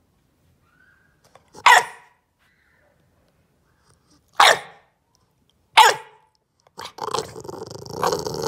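Bulldog puppy demand barking in protest: three short, sharp barks a couple of seconds apart, then a longer, rough, noisy vocalising near the end.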